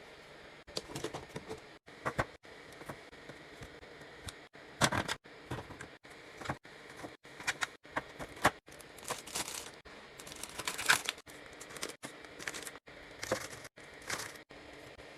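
Groceries and containers being handled while restocking a fridge: plastic packaging crinkling, with irregular clicks and knocks as items are set down, the loudest about five seconds in and near eleven seconds.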